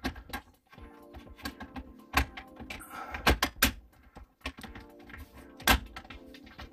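Plastic dash trim of a MKV Jetta being pressed and worked into its retaining tabs by hand: a series of sharp plastic clicks and knocks, the loudest about two, three and a half and nearly six seconds in, without the piece seating yet.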